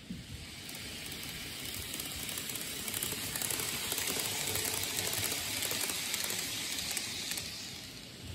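N-gauge model train running past on the layout's track: a hiss of wheels and motor that grows louder, peaks in the middle and fades away near the end, with fine clicking over the rail joints.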